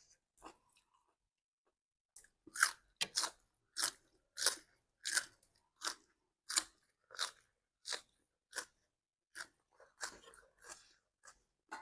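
A person chewing crunchy food close to the microphone: after a near-silent pause of about two seconds, a steady run of crisp crunches, about one and a half a second.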